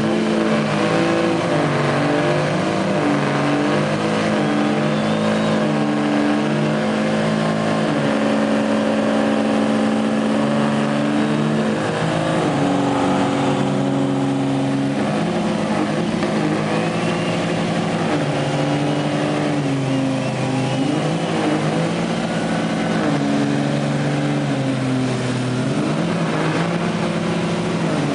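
Dodge Ram pickup's diesel engine held at high revs through a long burnout, its rear tyres spinning on the pavement. The engine note dips and climbs back a few times but never drops to idle.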